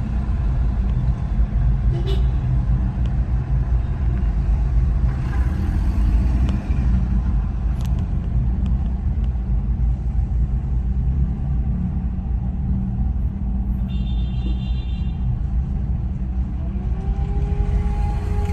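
A motor running steadily with a low rumble, joined by a pair of held tones near the end.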